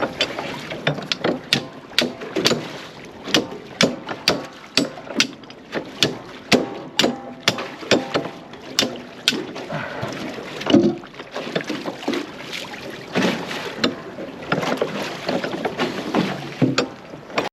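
Irregular sharp knocks and slaps, about two or three a second, over a steady rush of water and wind, aboard a small boat sitting on the water.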